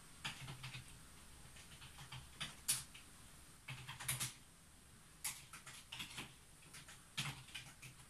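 Typing on a computer keyboard: short, irregular runs of keystrokes with brief pauses between them.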